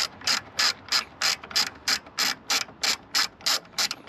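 Socket ratchet wrench clicking in quick, even strokes, about three a second, as a 13 mm bolt is backed out.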